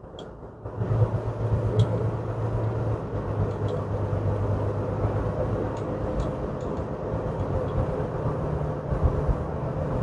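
Car cabin noise while driving on a paved highway: a steady low engine hum with tyre and road rumble, which comes up about a second in and then holds steady.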